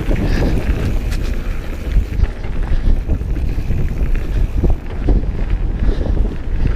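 Mountain bike descending a dirt forest trail at speed: wind buffeting the microphone over a constant low rumble, with the tyres, suspension and frame knocking and rattling over roots and rocks.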